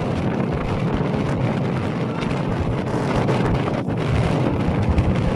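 Wind buffeting the microphone, a steady rushing noise with no clear sound events on top.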